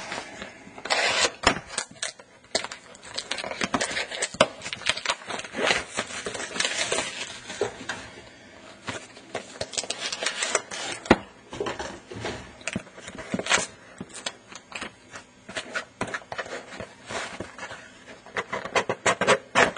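Handling noise from a trading-card box being set up and opened: irregular clicks, taps and rustling of cardboard and packaging, with the camera knocked about as it is moved. The noises are busiest early and near the end, with a lighter stretch in the middle.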